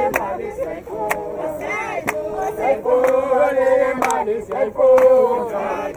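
A group of men and women singing together, chant-like, with a sharp beat about once a second keeping time.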